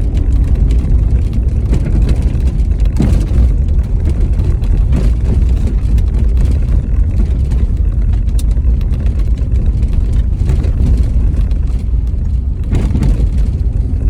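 Car driving, heard from inside the cabin: a steady low rumble of engine and tyres on the road, with a few brief knocks or rattles, about three in all.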